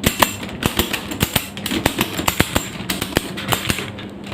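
The ratchet buckle of a 50 mm endless ratchet strap clicking rapidly as its lever is pumped open and closed to tighten the webbing. The clicks come in quick irregular runs, several a second, easing off briefly near the end.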